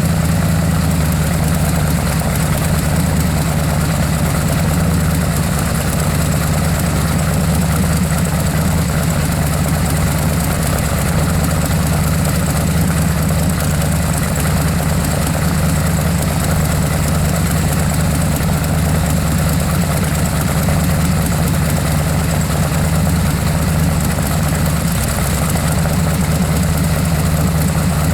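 383 small-block V8 engine idling steadily.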